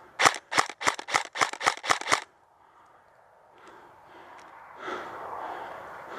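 Airsoft rifle fired in quick semi-automatic shots, about eight sharp cracks over two seconds, followed by faint clicks and rustling of movement.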